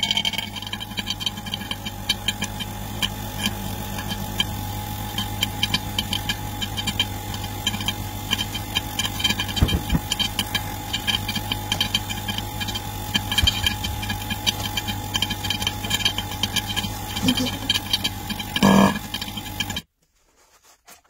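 Vacuum pump running with a steady hum and a fast crackling rattle, drawing air out of a phone-screen laminating mold through its hose. It cuts off suddenly near the end, just after a short louder sound.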